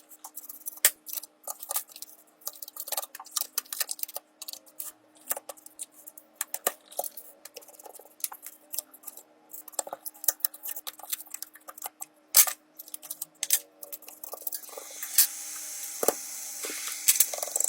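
Rapid, irregular clicks and taps of small hand tools on a phone's hard parts, over a faint steady hum. A hissing spray starts a few seconds before the end.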